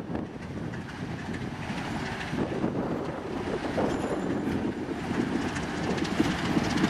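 TEM2 shunting diesel locomotive moving slowly toward the listener, its engine and wheels on the rails growing gradually louder as it approaches.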